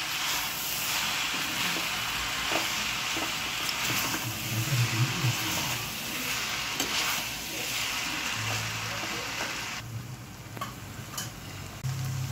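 Hakka noodles and vegetables sizzling in a hot pan as they are tossed and stirred, with short scrapes and clicks of a metal utensil against the pan. The sizzle drops noticeably about ten seconds in.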